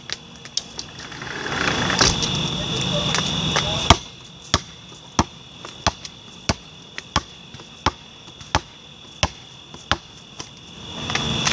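Basketball being dribbled: single sharp bounces about every two-thirds of a second through the middle stretch, after one louder bang a few seconds in.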